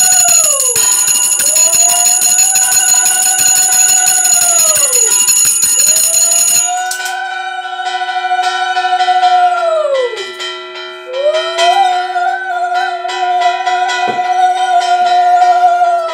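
A conch shell (shankha) blown in long, steady blasts of about four seconds each, sliding up in pitch as each begins and down as it ends, three blasts with short breaths between. For the first six seconds or so a hand bell rings rapidly alongside it, then stops. Together they are the sounds of the lamp-waving aarti in a Hindu puja.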